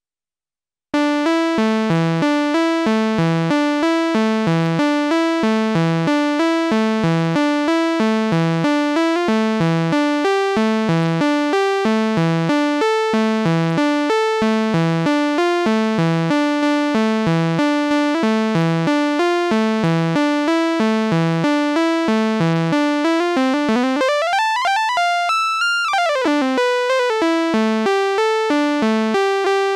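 Moog Subharmonicon analog synthesizer playing a fast, repeating polyrhythmic sequence from its step sequencers, recorded straight from its output. It starts about a second in. Near the end one oscillator's pitch sweeps up and back down as its frequency knob is turned.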